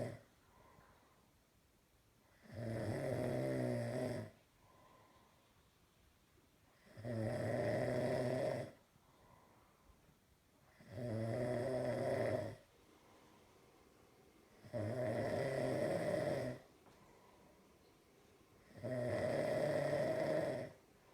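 Snoring: five long snores, one about every four seconds, each lasting a second and a half or so, with quiet breathing between them.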